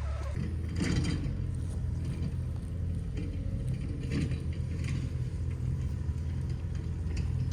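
Engine of a machine doing dirt work running steadily at a low pitch, with a few short clanks about a second in and again about four seconds in.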